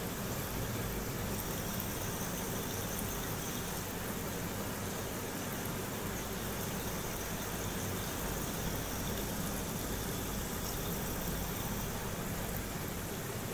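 Steady low hum and hiss of an aquarium air pump running.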